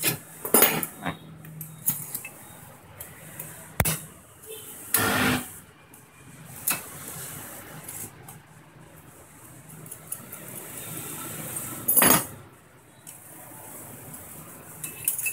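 Sheet-metal cutting guide and its hook being handled against a handheld tile cutter's base: scattered metal clinks, scrapes and knocks, with a short rattle about five seconds in and the sharpest knock about twelve seconds in.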